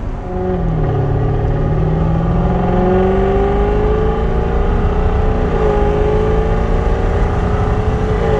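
Jaguar F-Type's engine and exhaust under gentle acceleration, the note rising steadily, dropping at an upshift about five and a half seconds in, then climbing again over a steady road rumble.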